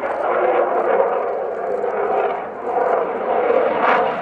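F-16 fighter jet in display flight, its engine noise a loud, continuous rush that dips briefly about halfway through and then swells again.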